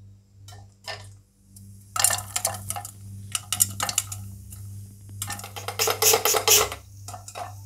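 Popcorn popping inside a closed stainless steel pressure cooker: a few scattered pops at first, then rapid popping from about two seconds in. Around five seconds in the cooker is shaken and the kernels rattle and pop densely against the metal.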